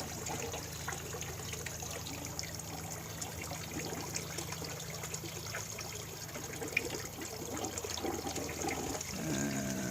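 Water from the pond filter trickling and splashing steadily into the pond, over a low steady hum.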